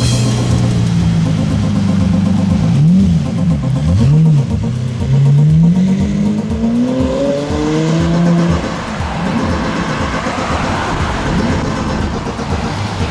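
Lamborghini V12 supercar engine blipped twice, then accelerating hard away with one long rising note, fading into a rushing road noise.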